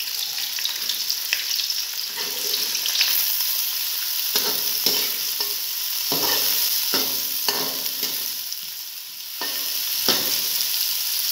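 Sliced onions sizzling in hot ghee in a metal pot as they brown, with a slotted metal spoon scraping and stirring them in repeated strokes against the pan.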